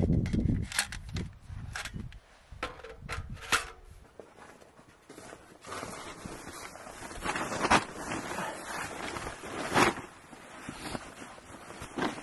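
Handling noises: a few sharp clicks and knocks in the first few seconds, then the rustling of a plastic tarp groundsheet being handled and smoothed out, with two louder rustles about halfway through.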